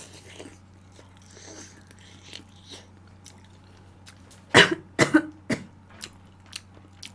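A woman chewing quietly on a mouthful of spicy braised pork ribs, then coughing three times in quick succession about halfway through, with a few smaller throat sounds after. She is coughing on the spicy sauce.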